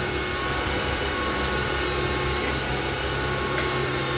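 Breville electric stand mixer running at a steady speed, its beaters turning in banana bread batter; an even motor hum with several steady tones.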